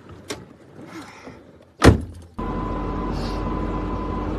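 A sharp knock about two seconds in, then a car's steady low running rumble heard inside the vehicle.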